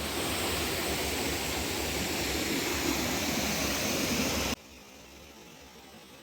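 Rushing water of a small stream, a steady hiss that cuts off suddenly about four and a half seconds in, leaving only a faint steady hiss and hum.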